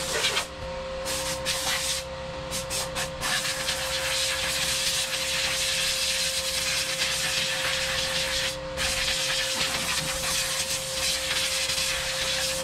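Compressed air hissing from an air-hose blow gun in long blasts with a few short breaks, blowing dirt and oil off the top of a tractor transmission. A steady tone runs under the hiss.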